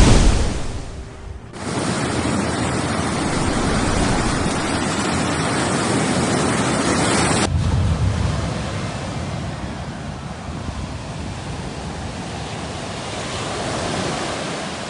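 Sea waves breaking and washing up a shore, a continuous rushing surf with a loud surge at the start. It jumps suddenly louder about a second and a half in and drops abruptly to a softer wash about halfway through.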